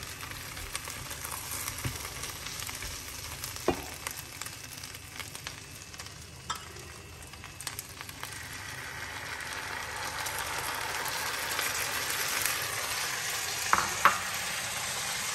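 Giant prawns sizzling in oil in a frying pan while a spatula stirs and scrapes them, with a couple of sharp knocks. The sizzle grows louder about two-thirds of the way through, once sauce has been poured into the hot pan.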